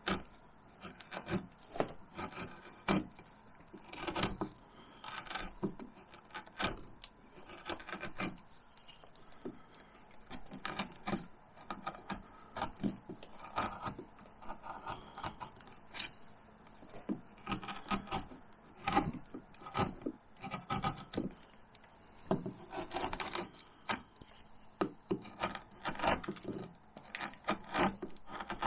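A hand carving gouge slicing and scraping into cottonwood bark: a run of short, irregular cuts, some crisp, some longer scraping strokes.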